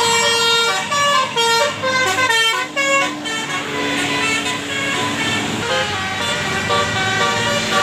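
Tour bus's Basuri 'telolet' multi-tone horn, its roof-mounted trumpets playing a tune of short changing notes with a longer held note partway through.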